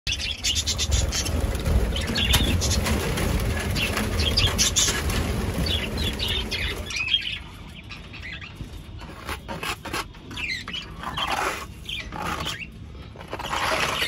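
A flock of budgerigars chirping and chattering, with wings fluttering; the first half is louder and busier, with a low rush under the calls, and the chatter thins out about seven seconds in.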